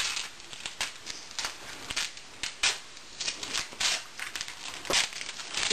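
Packaging crinkling and crackling as the padding wrapped around a new ball-jointed doll is handled and pulled off: a run of irregular short crackles and clicks.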